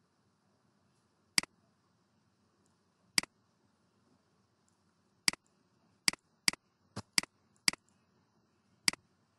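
Computer mouse button clicking about nine times at irregular intervals, each a short sharp click, several coming in quick succession in the second half, over faint hiss.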